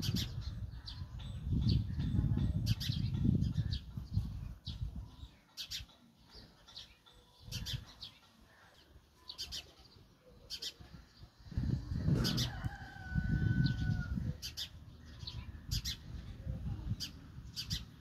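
Sparrows chirping: short, high chirps repeated at irregular intervals, with a longer held call about twelve seconds in. Bursts of low rumble come and go underneath.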